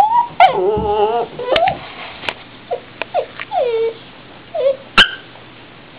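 A dog whining in a string of short cries that rise and fall in pitch, with one longer wavering cry near the start. A few sharp clicks or knocks fall in between, the loudest about five seconds in.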